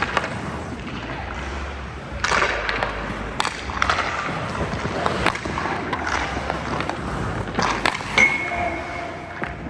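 Ice hockey shooting drill on a goaltender: sharp clacks of a stick on pucks and pucks hitting the goalie's pads, several times, with skate blades scraping the ice about two seconds in. About eight seconds in comes a short ringing clink, over a steady low hum.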